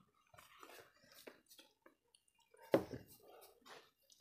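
Close-up eating sounds: dal poured from a glass bowl onto rice, then rice squished and mixed by hand, with soft chewing and small mouth clicks. One sharper, louder click comes about two thirds of the way in.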